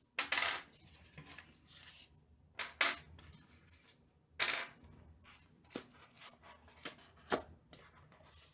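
Small steel screwdriver bits and packaging being handled and set down on a table, giving scattered separate clicks and clacks every second or so.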